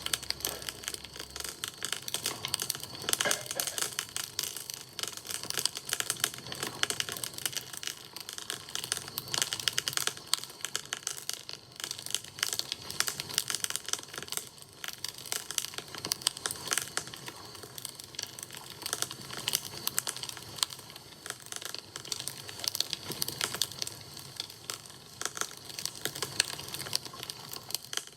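Wood fire crackling: a dense, unbroken run of sharp pops and snaps from burning wood.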